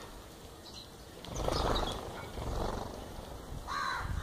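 Sparrows fluttering right at the microphone: a low rushing rumble of wingbeats about a second in, lasting a couple of seconds, with a few short high chirps. A lower single call comes near the end.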